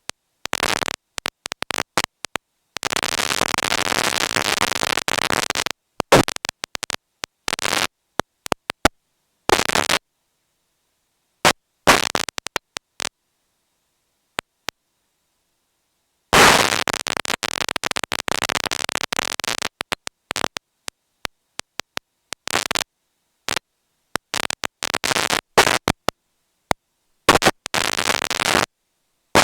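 Infrared light signals picked up by a sensor and played as sound: harsh bursts of crackling, buzzing noise that switch on and off abruptly, with dead silence between them. There are two longer bursts of several seconds each and many short clicks scattered between them.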